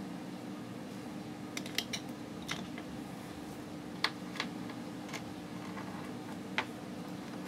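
Scattered light clicks and taps of small printer-frame parts and hardware being handled and fitted together, about seven in all, over a steady low hum.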